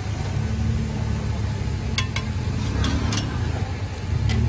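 A metal spatula clinking against the frying pan and plate several times, in quick pairs from about two seconds in, over a steady low rumble.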